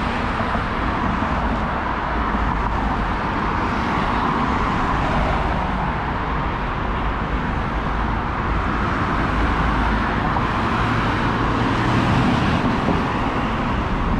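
Steady motor-vehicle road noise: a continuous low rumble with a hiss over it, unbroken and even in level.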